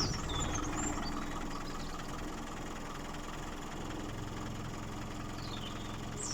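Range Rover Classic engine idling steadily, just started. Birds chirp faintly a few times.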